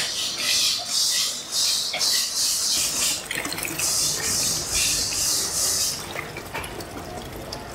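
Metal scoops dipping into a basin of soaked glutinous rice and coconut milk and pouring it into bamboo tubes: repeated wet sloshing and splashing pours, about two a second, easing off about six seconds in.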